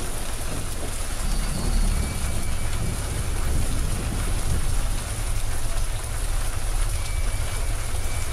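Heavy rain pouring down on a street, with a deep, fluctuating rumble underneath from a pickup truck driving through the downpour.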